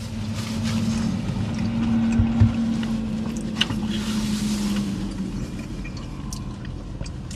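A man with a big mouthful of burger, chewing and humming one long, steady, low 'mmm' through his closed mouth that fades out about five seconds in, with a few faint clicks.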